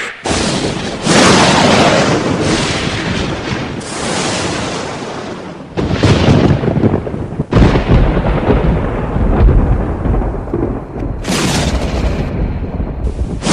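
Thunder: a series of loud cracks, each rolling off into a low rumble, one after another.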